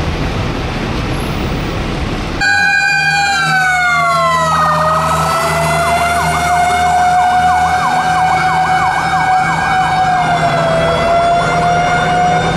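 Street traffic noise that gives way abruptly, about two seconds in, to a loud emergency-vehicle siren. One steady tone glides down and settles, while a second tone warbles quickly up and down over it.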